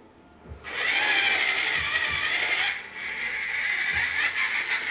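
Losi Mini Rock Crawler's small electric motor and gear drivetrain whining under throttle, starting about a second in, dropping briefly a little before the middle and then running on slightly quieter.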